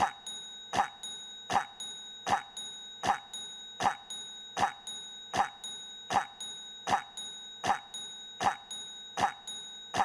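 A single short cough sound effect, looped: the same cough repeats at a perfectly even rate, about four every three seconds, over a faint steady high tone.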